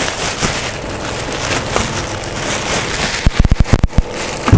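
Packaging being pulled off the unboxed espresso machine: a steady rustling crackle of wrapping, then a quick run of low thumps a little past three seconds in.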